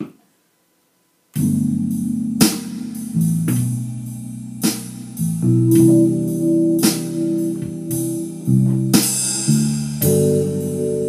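Keyboard music: chords played on a Lounge Lizard electric-piano sound along with a sequenced backing track, with sustained chords and sharp hits roughly every two seconds. It begins after about a second of silence.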